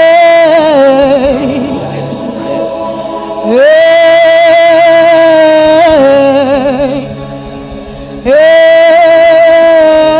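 A solo voice singing wordless gospel-style long notes: three times it scoops up into a high held note, holds it for a couple of seconds, then breaks into a wavering, ornamented run. A low steady tone sustains underneath.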